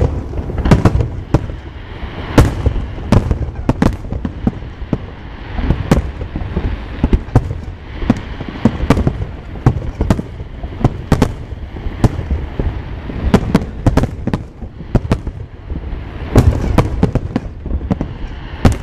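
Aerial fireworks shells bursting one after another, several loud booms a second, over a continuous low rumble.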